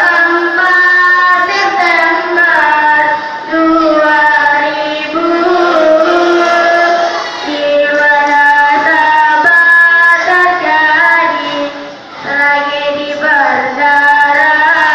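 A young voice singing solo: long ornamented phrases with held notes and quick melodic runs, broken by short pauses for breath.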